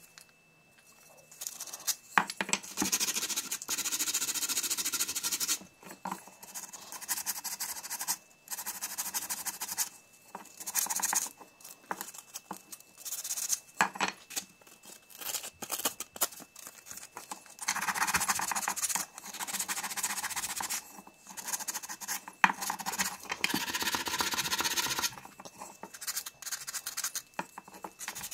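Sandpaper rubbing over a carved pine spoon as it is sanded by hand, in stretches of quick strokes a few seconds long with short pauses between.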